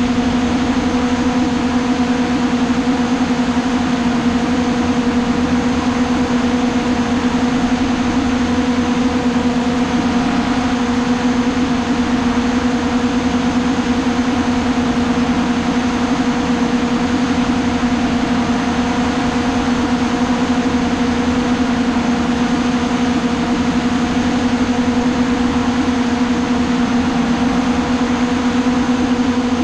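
Hovering drone's motors and propellers humming steadily: an even, unchanging hum with one strong pitch and fainter higher tones over a rushing hiss.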